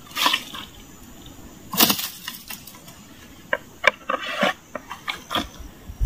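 Machete hacking at brush and branches: irregular sharp chops and cracks of snapping wood, the loudest about two seconds in, with leaves and twigs rustling between.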